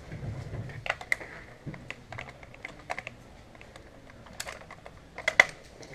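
Airsoft skirmish clatter: a scatter of short, sharp, irregular clicks and clacks, with a loud double clack about five seconds in.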